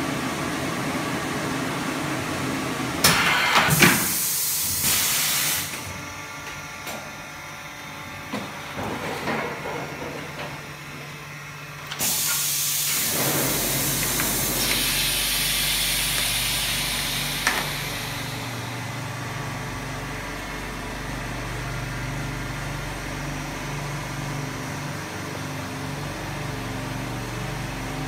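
Blister vacuum thermoforming machine running through a forming cycle: a steady mechanical hum, loud bursts of air hissing about three to five seconds in, and a second strong hiss starting suddenly about twelve seconds in that fades away over several seconds. A steady low hum then runs on.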